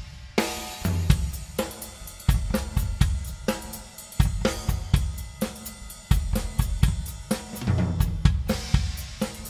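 A large drum kit played solo in a busy rhythm: tom and snare strokes over bass drum, with cymbals and hi-hat ringing over them.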